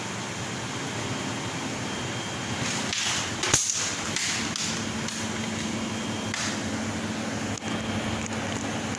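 CNC laser cutting machine running while it cuts: a steady rushing machine noise, with a few sharp hisses and one loud click about three to four seconds in, and a steady low hum that sets in about halfway.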